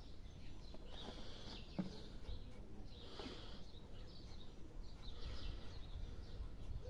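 Birds chirping now and then over steady low outdoor background noise.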